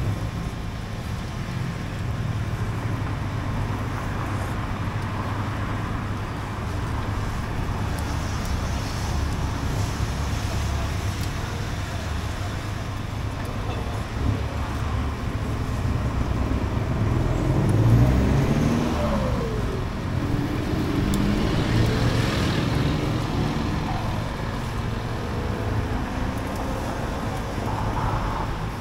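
Steady rumble of street traffic. Partway through, a motor vehicle's engine swells up close, its pitch falling and then rising again before it fades back into the traffic.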